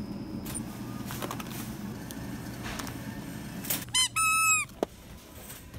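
A squeaky pet toy squeezed in its plastic packaging: a short chirp, then a louder squeak held for about half a second, about four seconds in, over a steady low background murmur.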